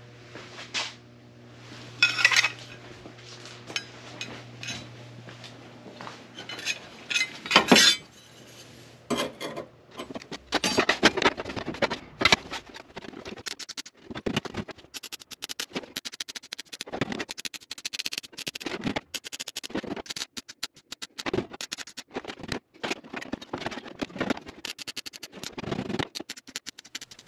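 Clinks and taps of a thin sheet-steel filler piece being handled and fitted at the transmission tunnel. From about ten seconds in, a long run of rapid crackling in short bursts with brief gaps, like MIG tack welds being laid along the seam.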